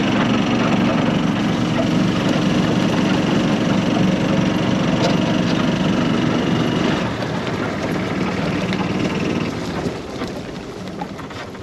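Golf cart's engine running steadily as it drives, easing off about seven seconds in and getting quieter toward the end.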